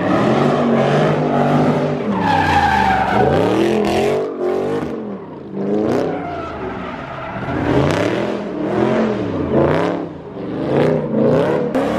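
A car's engine revving hard, its pitch swinging up and down again and again, with tires screeching and skidding as the car spins donuts in its own tire smoke.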